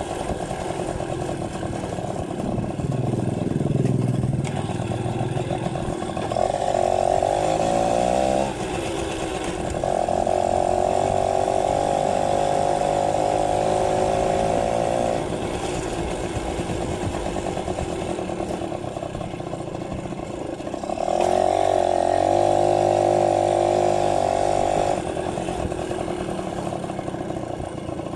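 Yamaha V50's small two-stroke single-cylinder engine running while the moped is ridden, revving up and easing off several times, with three long stretches held at high revs.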